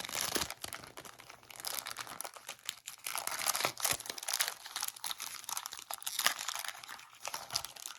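Plastic rack-pack sleeve crinkling and rustling in irregular bursts as it is handled and the baseball cards are slid out of it.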